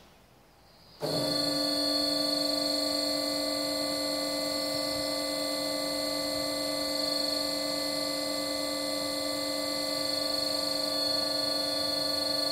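BOMAR Workline 610.450 DGH metal-cutting bandsaw running with a steady, multi-toned whine that starts abruptly about a second in.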